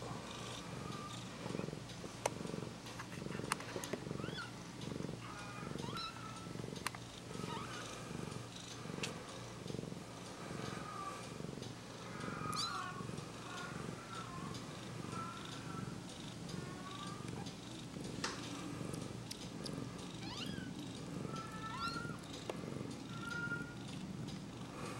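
Mother cat purring steadily and rhythmically while her newborn kittens nurse against her, with brief high squeaks and a few small clicks scattered over it.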